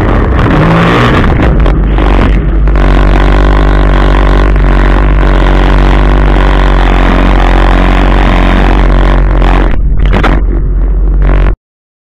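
2008 Sea-Doo GTI 155 personal watercraft running at speed over choppy water, its Rotax three-cylinder four-stroke engine holding a steady note after about two seconds, mixed with the rush of water and spray. The sound cuts off suddenly near the end.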